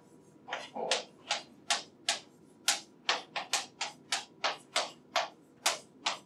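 Chalk writing on a blackboard: a quick run of sharp taps and short scrapes as letters are written, about three strokes a second, starting about half a second in.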